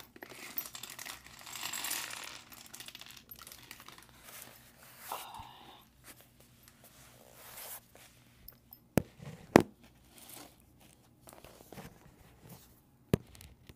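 Clear plastic parts bags rustling and crinkling while Lego pieces are picked through, then a few sharp clicks in the second half, the loudest about nine and a half seconds in.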